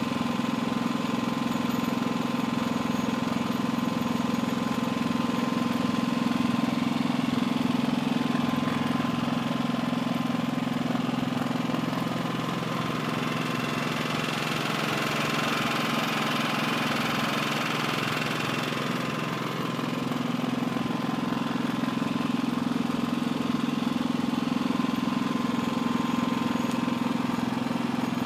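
USR EV65i 6 kVA petrol inverter generator running steadily with an even engine hum. The hum grows somewhat brighter and hissier for a few seconds around the middle.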